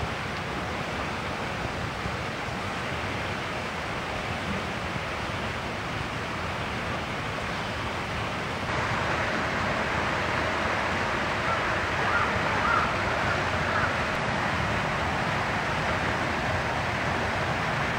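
Steady outdoor background noise, like wind on the microphone, becoming a little louder about nine seconds in.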